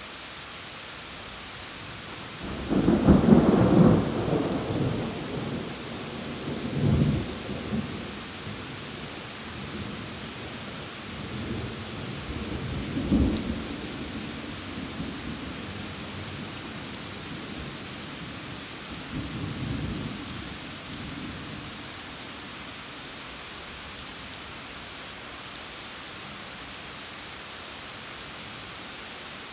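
Thunder rolling over steady rain. A loud rumble starts about two and a half seconds in, followed by further rolls that fade out about twenty seconds in, leaving only the rain.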